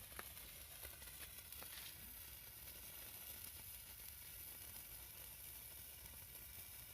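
A small firework fizzing faintly as it burns, a steady hiss with a few light crackles in the first two seconds.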